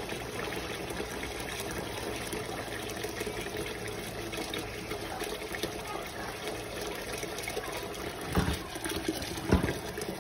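Water running steadily in a kitchen, with two short knocks a second apart near the end.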